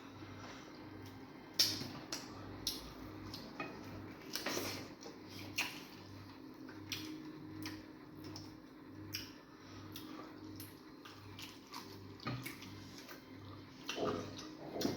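Wet eating sounds of fufu and egusi soup: irregular squishes, lip smacks and clicks of chewing.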